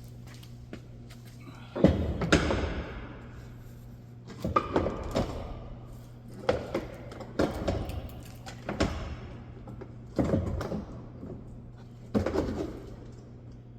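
Plastic bumper parts being handled and fitted: six uneven bursts of clunks, knocks and rattles.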